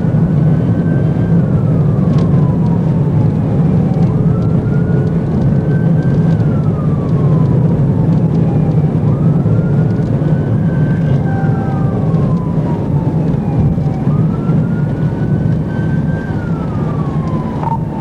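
Police car siren in a slow wail, its pitch rising and then falling about every five seconds, over the steady low drone of the patrol car's engine and tyres at highway speed.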